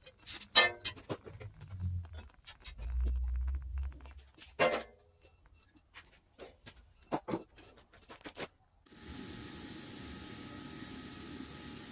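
Freshly poured smelting slag cooling in a conical pour mold, crackling with sharp, irregular ticks and clicks as it cracks and shrinks, with a brief low rumble a couple of seconds in. About nine seconds in the sound cuts to a steady rushing background noise.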